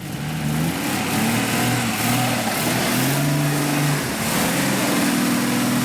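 Off-road 4x4's engine revving hard under heavy throttle, its pitch rising and falling several times, with a brief dip about four seconds in.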